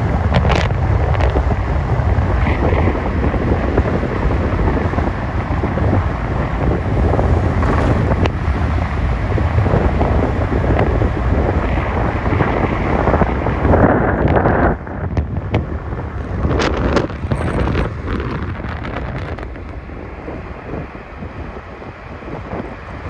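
Wind buffeting the microphone over the road noise of a vehicle moving at speed. The noise drops noticeably about 15 seconds in.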